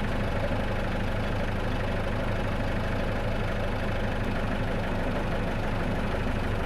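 Tractor engine idling steadily with an even low pulse.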